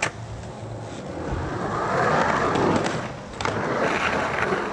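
Skateboard wheels rolling on the smooth concrete of a pool bowl. The rolling builds to its loudest about two seconds in, dips briefly, then swells again as the board passes close by.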